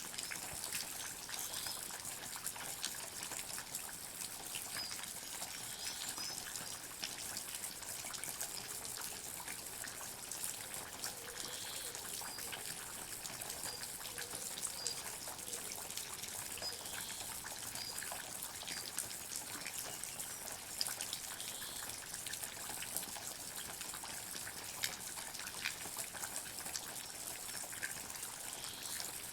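Water drops falling in a forest: many small, irregular drips over a steady trickling hiss, with faint short high chirps scattered through the middle.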